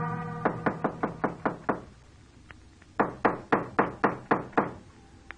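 Knocking on a door: a run of about six raps at roughly four a second, a pause of about a second, then about seven more. An organ music bridge fades out just as the knocking begins.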